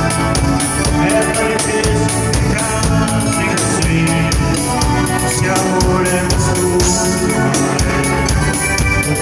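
Band dance music: an instrumental passage with drum kit, keyboard and guitar playing a steady beat, without vocals.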